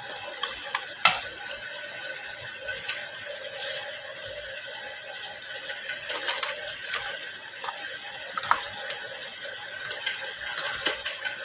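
Small household items handled and set down on a counter: scattered light clicks and knocks, with the rustle of plastic packets, over a steady background hum.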